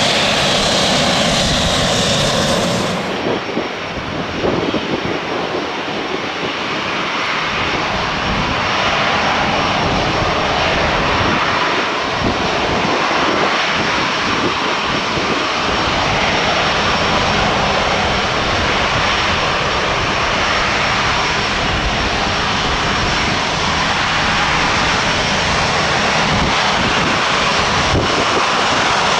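Airbus A350-900's Rolls-Royce Trent XWB turbofan engines running at low taxi power: a steady jet rush and whine. About three seconds in, the sound briefly dips and turns duller, then runs steadily again.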